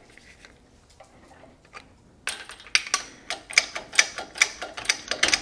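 Even metallic ratcheting clicks, about four a second, start a couple of seconds in as the press setup is worked. The press is pushing the old sleeve off a GM 4T40E/4T45E transaxle stub shaft held in a bearing puller.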